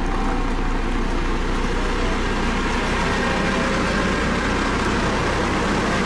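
Dynapac CC522 double-drum asphalt roller's diesel engine running steadily as the roller drives over fresh asphalt, with a constant deep hum underneath.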